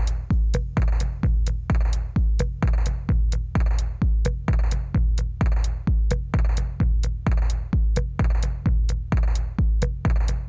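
Background music with a steady, heavy electronic beat, about two beats a second.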